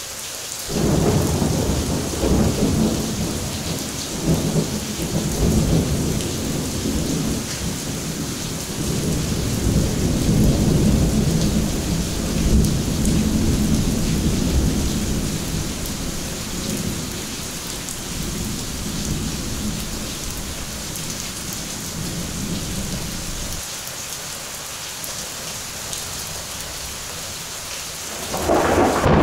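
Heavy rain pouring steadily on the ground and pavement, with close thunder. A thunderclap breaks in suddenly about a second in and rolls on as a long rumble for some twenty seconds before dying away. Another clap starts suddenly near the end.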